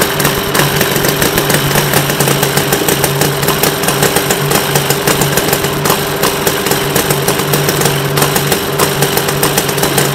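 Miniature model V-twin engine running steadily at a fast idle of about 1,500 rpm, an even, rapid beat with a steady hum.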